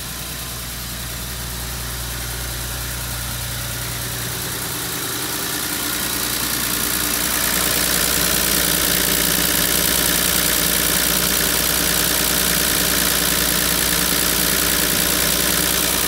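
Nissan TD42 4.2-litre inline-six diesel idling steadily. It grows louder and more clattery partway through as it is heard up close at the open engine bay.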